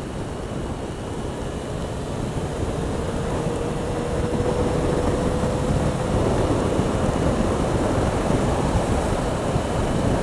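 Motorcycle riding at speed, heard as heavy wind rush on the microphone mixed with engine and road noise, growing steadily louder. A faint steady whine sounds for a few seconds in the middle.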